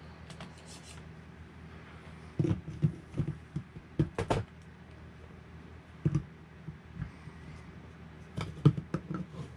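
Light knocks and thuds of 1/8-scale RC car wheels and parts being handled and set down on a workbench. They come in short clusters about two and a half, four, six and eight and a half seconds in.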